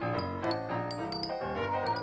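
Background music: a tune of short, quick notes, about four or five a second, over a held low note.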